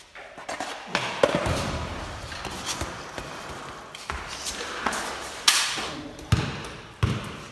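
About six irregular thumps and knocks spread over several seconds.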